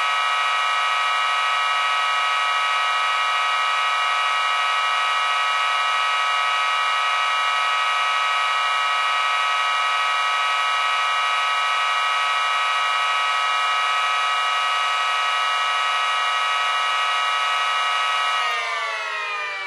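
Six miniature dual-tone Snowcube sirens sounding together at full speed: a dense chord of many steady high tones whose ports clash with each other, sounding more like noise than harmony. About eighteen seconds in, all the pitches start to fall together as the sirens wind down.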